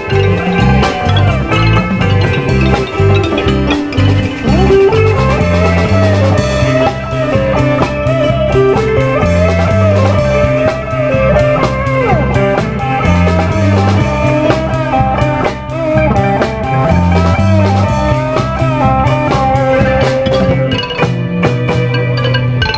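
Background music led by a guitar melody over a steady bass line and drums.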